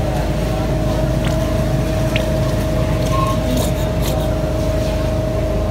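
Steady mechanical hum with a constant mid-pitched whine and low rumble. A few faint squirts from a plastic sauce squeeze bottle come through about halfway in.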